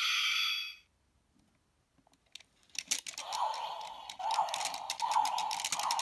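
Earth Brace toy wrist gadget playing electronic sound effects through its small speaker. A short electronic tone cuts off in the first second, then a few light clicks come from the toy being worked. About three seconds in, a loud, noisy effect full of rapid crackles starts up and keeps going: the Grip Blizzard transformation sound.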